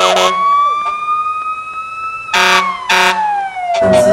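A siren rising slowly and then winding down in pitch, cut by short air-horn blasts: one right at the start and two more past the middle.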